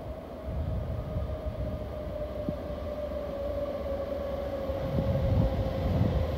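Approaching Alstom Prima II electric locomotive hauling a passenger train: a steady whine from its traction equipment, slowly dropping in pitch, over a low, uneven rumble.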